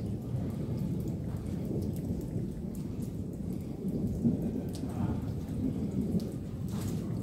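Thunder rumbling through steady rain during a thunderstorm, with scattered raindrops ticking close by on the smartphone.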